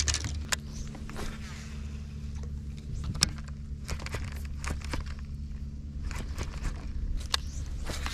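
A boat motor hums steadily, with scattered sharp clicks and knocks from handling on the boat.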